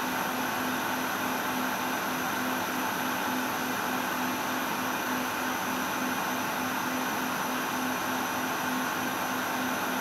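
Industrial factory machine running steadily: a constant mechanical hiss and whir with a low hum that pulses at an even rhythm.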